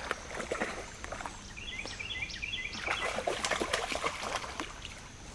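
Irregular splashing and trickling water. A bird sings a short run of quick repeated chirps about two seconds in.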